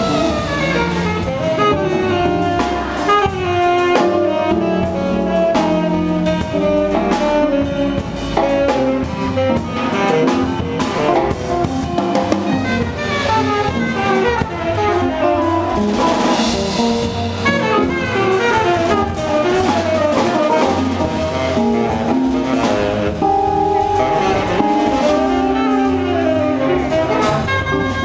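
Live small-group jazz playing a blues: saxophone with electric guitar, upright bass and drum kit, the horn and guitar lines running fast over a steady swing.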